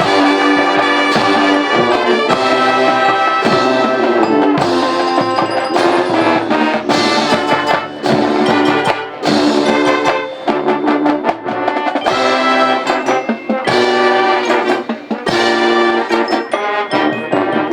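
Marching band playing: a full brass section of trumpets and trombones over drums, in loud chords with punctuated hits.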